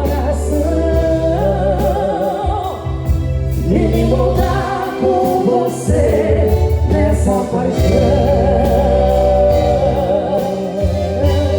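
Festa junina quadrilha song: long, held sung notes with vibrato and no words, over a heavy bass line and a steady percussion beat.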